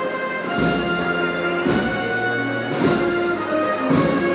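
Processional brass band playing a slow Holy Week march: sustained brass chords over a drum stroke about once a second.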